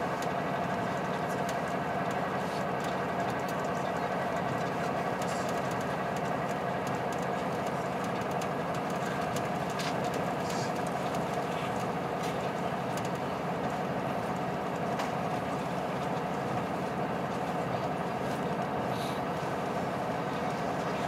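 Steady drone of a KiHa 183 series diesel railcar's engine and running gear, heard from inside the passenger car, with a few faint clicks.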